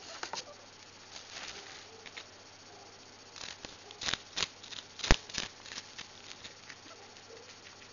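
Guinea pig biting and crunching fennel: a run of crisp snaps and crackles, thickest in the middle, with the loudest snap about five seconds in, alongside rustling of the paper it sits on.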